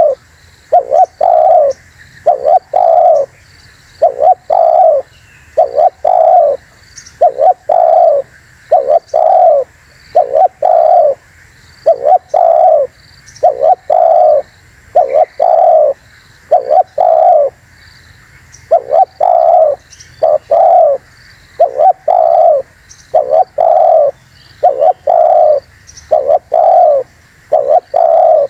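Spotted dove cooing over and over in short phrases of two or three coos, repeated about every second and a half, with faint high chirps of small birds behind.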